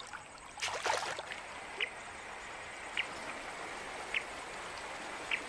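River water running with a steady hiss. A short high chirp from a small animal repeats about every second, and there is a brief noisy burst a little under a second in.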